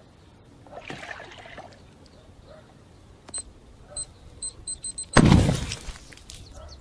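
A series of short, high electronic beeps that come faster and faster, cut off by a sudden loud boom that dies away over about a second.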